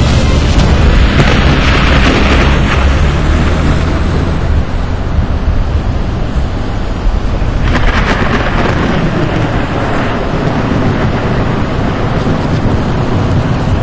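Thunder rumbling heavily for the first few seconds, then easing off, over a steady rushing noise that swells again about eight seconds in.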